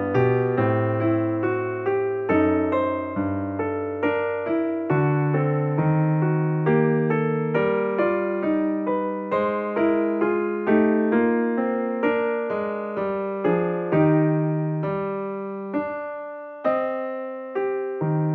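Calm piano music: a gentle melody of single notes and chords struck about every half second over held bass notes.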